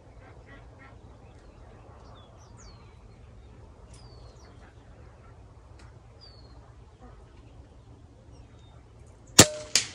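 Small birds chirping faintly, then near the end a single sharp air rifle shot, followed about half a second later by a second, weaker crack. The shot is a miss.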